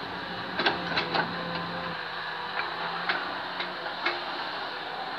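Demolition excavator at work: a low engine hum under a scattered series of sharp knocks and clanks from the machine and the rubble it is working, about eight in all, irregularly spaced. The hum drops away near the end.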